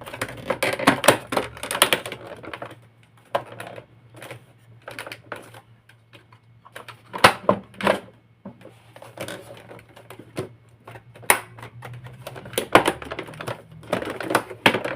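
Hard plastic parts of a vacuum cleaner clicking and knocking as they are handled and fitted back together, in irregular clusters of sharp clicks.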